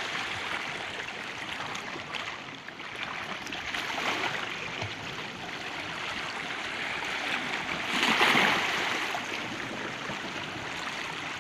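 Sea waves washing onto the shore in a continuous rush, swelling about four seconds in and surging loudest with a bigger wave about eight seconds in.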